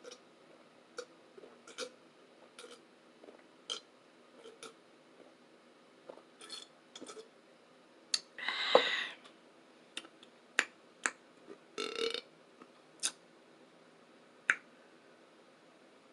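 Close-miked burp, the loudest sound, about eight and a half seconds in, and a shorter one about twelve seconds in, among sharp mouth clicks and lip smacks scattered throughout.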